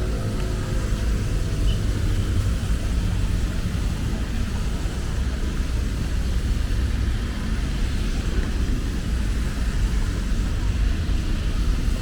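Steady low rumble of city traffic under an even hiss of rain on a wet street.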